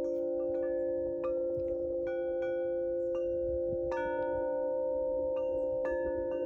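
Metal chimes ringing, struck at uneven intervals about once or twice a second, each strike ringing on over a steady low hum of earlier tones.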